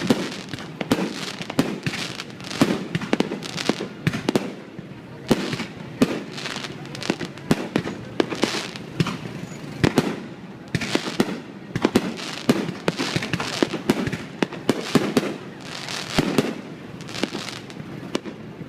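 A fireworks display going off: a dense, irregular run of sharp bangs and booms, several a second, without a break.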